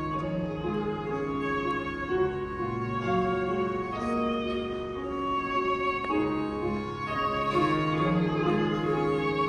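Violin playing a slow melody of long held notes over piano accompaniment.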